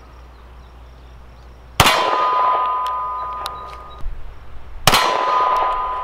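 Two shots from a Taurus G3c 9mm pistol firing hollow-point defense rounds, about three seconds apart. Each shot is followed by a metallic ring that dies away over about two seconds.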